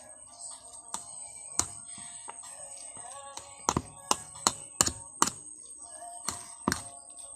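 An eating utensil clinks and scrapes against a ceramic plate in about a dozen sharp, irregular clicks, coming more often from about three and a half seconds in. Faint background music runs underneath.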